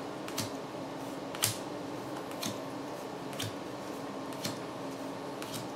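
Reverse-holo Pokémon trading cards being flipped through one by one in the hands, a short card snap about once a second over a faint steady hum.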